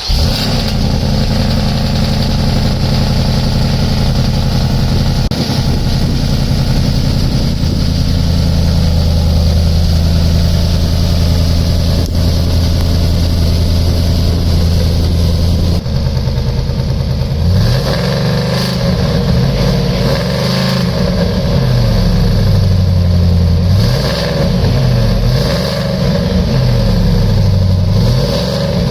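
Supercharged 5.0 V8 of a Ford F-150 breathing through long-tube headers and a custom active exhaust. It starts right at the beginning and idles steadily; about 16 seconds in the sound changes, and from there it is blipped repeatedly, each rev rising and falling.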